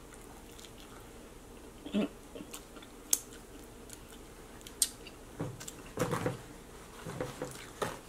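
Close-miked chewing of soft, saucy butter chicken, with wet lip smacks and a few sharp mouth clicks, the loudest about three and five seconds in.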